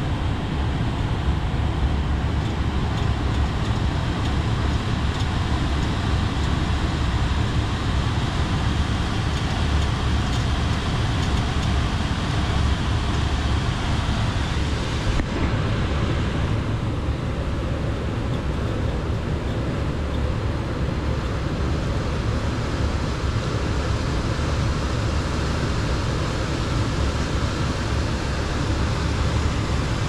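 Air-conditioning system running on a cooling call: a steady mechanical hum with the noise of the fan moving air. Its tone shifts slightly about halfway through.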